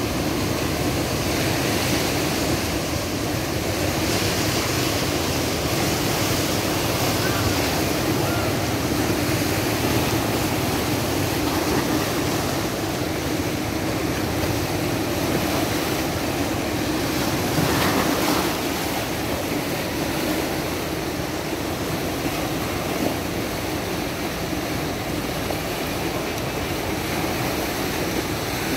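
The Bono tidal bore of the Kampar River surging past: a steady, loud rush of churning, breaking river water.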